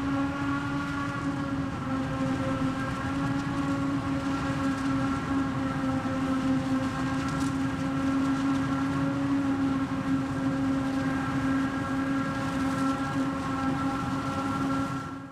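Steady machine hum with a strong, unchanging whine over a low rumble, which cuts off abruptly at the end.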